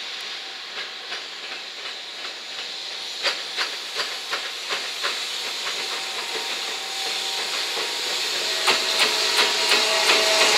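JR Freight EF210 electric locomotive hauling a container train past at low speed: a steady hiss that grows louder as it comes near, with runs of sharp clicks, about three a second, as the wheels cross rail joints and points. A humming tone joins in during the second half.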